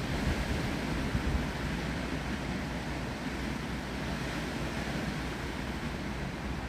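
Steady rush of wind and rain through trees, with a few low gusts of wind buffeting the microphone in the first second or so.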